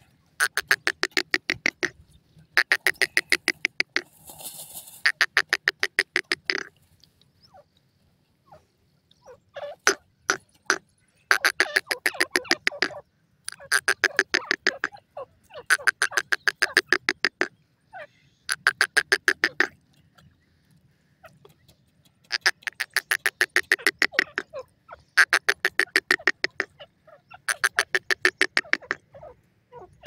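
Francolin (teetar) calling: runs of rapid, harsh clicking notes, each run a second or two long, repeated about every two seconds with a few longer pauses.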